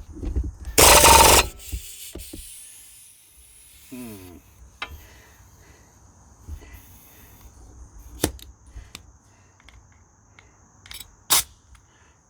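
Impact wrench fired in one short rattling burst about a second in, trying to break loose a rear sprocket nut. A few sharp metal clinks of tools follow.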